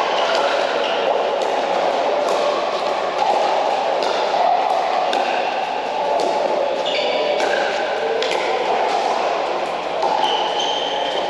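Pickleball paddles popping against a plastic ball, sharp hits scattered among the constant clatter and chatter of games on neighbouring courts in a large echoing indoor hall. A few short, high squeaks cut through about seven and ten seconds in.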